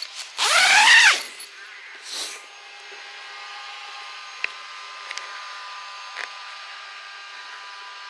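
Tent door zip pulled open in one fast stroke about half a second in, its rasp rising and then falling in pitch, with a shorter, weaker zip pull around two seconds in. A faint steady hum runs underneath.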